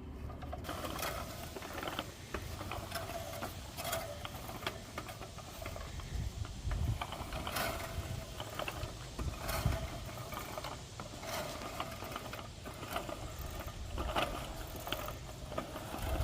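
Craftsman manual push reel mower being pushed through grass: the spinning reel clicks and whirs unevenly as it cuts, with a few low thumps.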